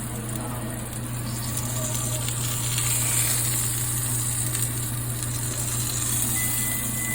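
Steady sizzling hiss over a low, even hum, with a short high beep near the end.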